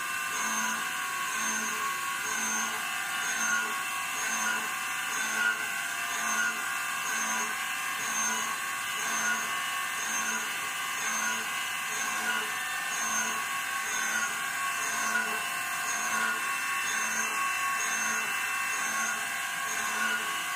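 CNC router spindle driving an end mill through 304 stainless steel plate, a steady cutting whine with a pulse that comes back about every 0.8 seconds.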